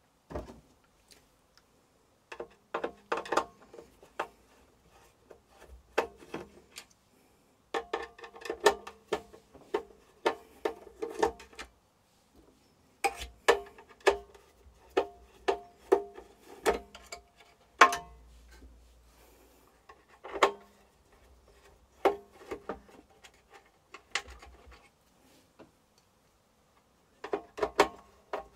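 Bursts of rapid clicks and scrapes from hand tools working on an air fryer's metal casing, each burst carrying a ringing metallic tone.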